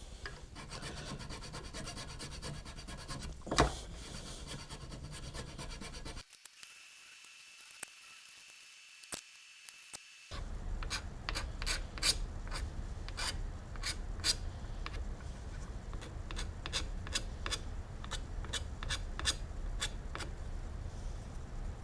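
Hand file strokes scraping across a small workpiece, repeated in a steady rhythm of about one to two strokes a second, with a quieter break of a few seconds near the middle.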